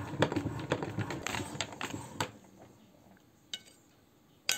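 Hand-cranked metal meat grinder being turned, with rapid clicking and grinding as it forces soft ice cream through the plate; it stops about two seconds in. Two single light clicks follow near the end.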